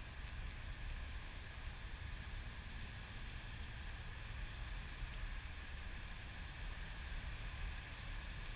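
Steady low outdoor rumble with a faint hiss above it and no distinct events.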